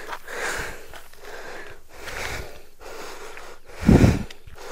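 A man breathing hard while climbing a steep hill: a run of heavy in-and-out breaths about every second, with one louder breath about four seconds in.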